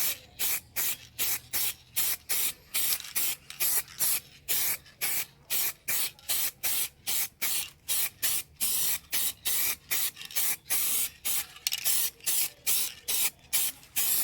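Aerosol spray-paint can laying a light coat on a car wheel rim in short squeeze-and-release bursts of hiss, about three a second, kept brief so the paint goes on evenly without running.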